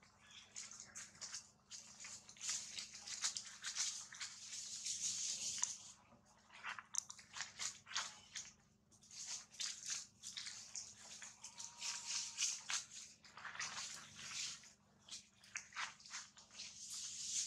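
Dry fallen leaves crackling and rustling irregularly as long-tailed macaques shift and walk about on the leaf litter.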